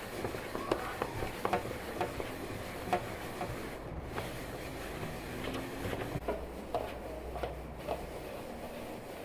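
Hands rubbing and pressing crumbly flour mixture through a perforated aluminium colander, with soft scraping and scattered light ticks against the metal.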